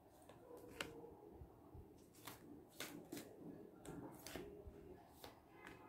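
Faint handling of a deck of tarot cards: soft card clicks and rustles, a few scattered short snaps over a quiet room.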